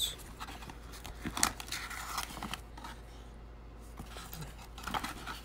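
Rustling and crinkling of a plastic-sleeved disc and paper inserts being handled in a cardboard box, with light scrapes. The rustles come in a cluster in the first two and a half seconds, sharpest about a second and a half in, and again briefly near the end.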